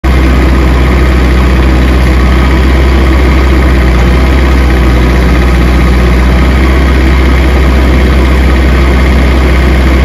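Ditch Witch ride-on trencher's engine running steadily, loud and close, with a deep even hum that does not change.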